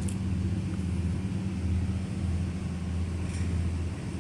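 Steady low electrical or mechanical hum with a low rumble, like a fan or air-conditioning unit running, with a couple of faint light ticks.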